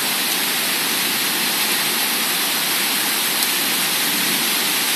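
Heavy wind-driven rain pouring down in a violent thunderstorm: a steady, even hiss of the downpour.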